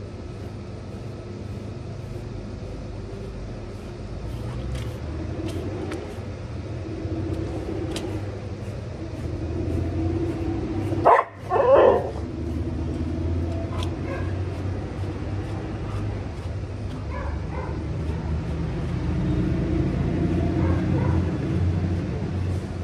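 American Bully dogs barking: two loud barks about halfway through, with fainter barks and yips later, over a steady low rumble.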